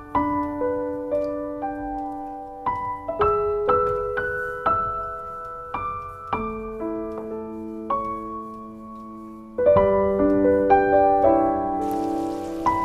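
Slow solo piano music, played note by note, growing louder and fuller about ten seconds in.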